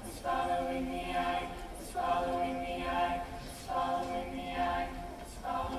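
Mixed show choir singing in held chords, in short phrases that swell and start again about every second and a half to two seconds.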